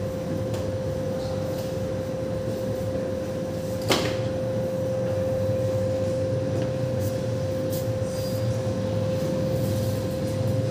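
Steady machine hum with a constant mid-pitched whine, and a single sharp click about four seconds in.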